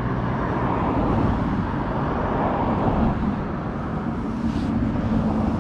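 Steady road traffic noise, cars passing on a nearby busy road.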